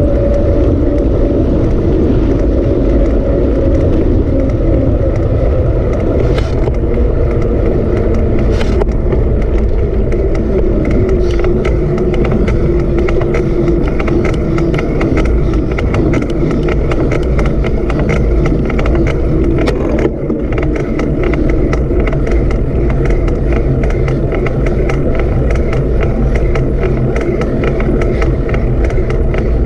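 Steady, loud rumble of a vehicle on the move, with a motor tone that slowly drifts in pitch and a constant patter of small clicks.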